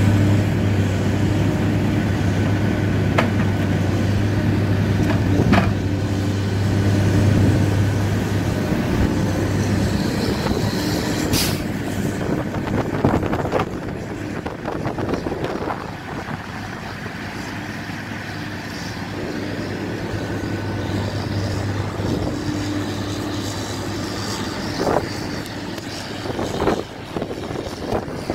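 Log loader unloading white pine logs from a log trailer: a diesel engine runs steadily, louder for the first third, and the logs and grapple knock and clunk now and then, about six times.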